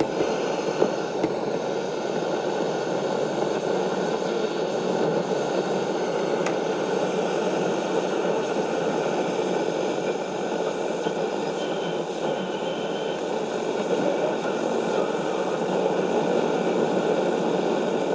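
Vintage Bush transistor radio hissing with steady static from its small speaker while tuned on the medium-wave band, with no station coming through clearly.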